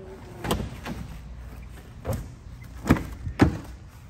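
Power tailgate motor hum stopping just after the start, then a series of sharp clunks and clicks of latches and doors, the loudest two close together near the end, as a rear door is opened.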